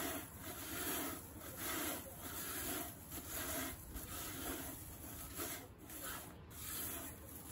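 Herb leaves being rubbed and pressed by hand against the surface of a wide metal pan: repeated dry rustling and scraping strokes, about one a second, as the herbs are rolled for tea.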